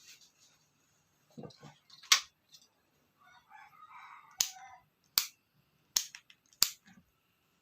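Several sharp, separate clicks of a motorcycle key and switch being turned on and off in a freshly wired horn relay circuit.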